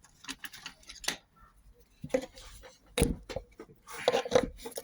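Clicks, scrapes and knocks of washing-machine parts being handled while a part is worked loose by hand, with a heavier knock about three seconds in and a run of clatter near the end.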